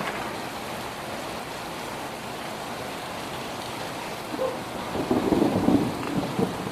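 Thunderstorm: steady rain falling, with a roll of thunder building about four seconds in and rumbling loudest near the end.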